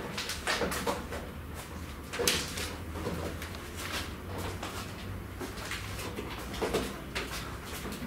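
Scattered light knocks and clicks at irregular intervals over a steady low hum, the loudest knock about two seconds in.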